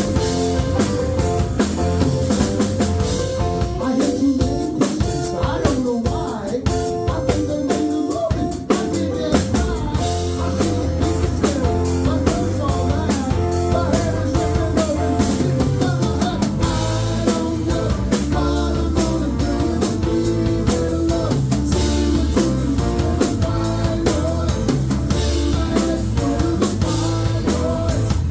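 Live rock band playing: drum kit, electric guitar and bass guitar.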